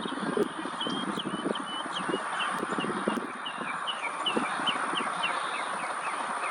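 A songbird singing a run of short, quick chirps, several a second, over steady outdoor hiss, with irregular low knocks underneath.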